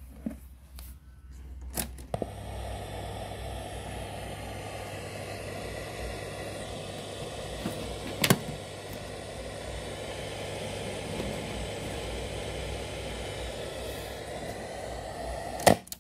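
A click, then the Sanyo MW220K radio-cassette player's speaker giving a steady hiss with a low mains hum. A sharp click falls midway, and a loud click near the end is followed by a sudden cut-off.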